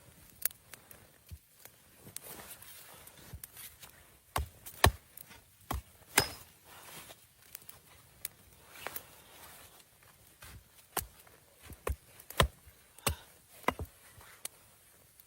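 A series of sharp knocks and taps at uneven intervals, about a dozen and a half, the loudest about five seconds in and again near twelve seconds.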